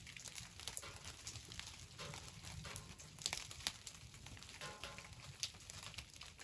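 Faint, irregular ticking and pattering of small hail pellets striking the tent fabric overhead, with a few sharper ticks.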